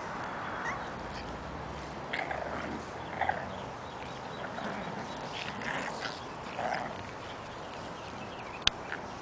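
Young Boston Terrier puppies at rough-and-tumble play, giving a handful of short, high-pitched cries spread through. A single sharp click comes near the end.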